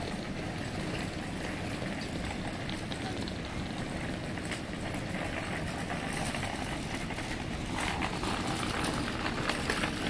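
City street background noise: a steady low rumble of traffic, getting a little louder in the last couple of seconds.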